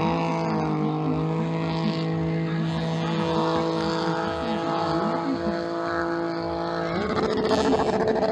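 Small motocross bike engine held at steady revs, rising sharply at the start and stepping up to higher revs about seven seconds in. Other mini bike engines buzz faintly underneath.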